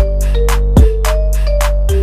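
Background music with a steady beat: deep drum hits about once a second and quick high ticks under a held melody line.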